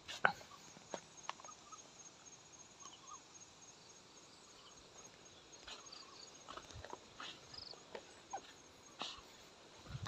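Quiet outdoor ambience: a faint high insect call pulsing about five times a second, fading out about halfway through, with scattered soft clicks and a few brief faint chirps.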